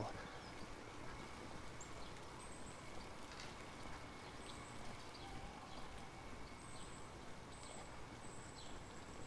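Faint outdoor ambience with a steady low background and scattered short, very high, thin bird calls and chirps.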